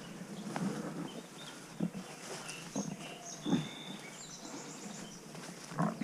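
Footsteps and the swish of grass and branches as someone pushes through tall grass and brush, in several uneven steps. A small bird sings short high chirps and a quick trill in the middle.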